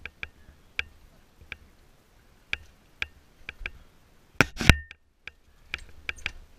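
Irregular sharp clicks and knocks, with one loud thump about four and a half seconds in; no engine is running.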